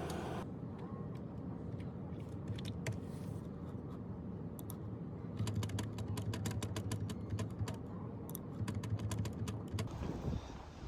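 Typing on a keyboard: quick irregular key clicks in runs, densest in the middle, over a low steady hum.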